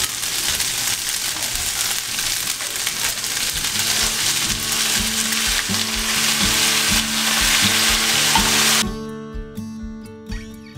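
Yakisoba noodles and vegetables sizzling in a hot frying pan as sauce is poured in and the noodles are tossed, the sizzle growing louder before cutting off suddenly about nine seconds in. Acoustic guitar music comes in under the sizzle near the middle and carries on alone after the cut.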